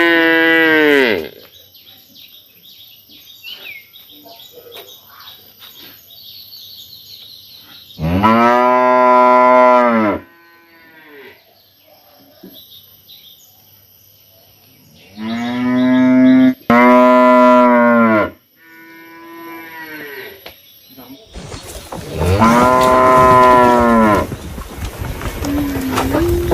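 Cows mooing: four loud, drawn-out moos several seconds apart, each lasting one to three seconds. Faint chirping fills the quiet gaps, and a steady hiss comes in during the last few seconds.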